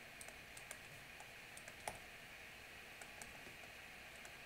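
Faint, irregular taps and clicks of a stylus writing on a tablet screen, with one sharper tap about two seconds in, over a steady low hiss.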